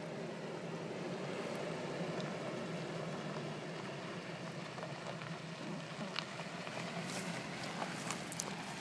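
Toyota pickup truck's engine running with a steady hum, with scattered light clicks and ticks in the second half.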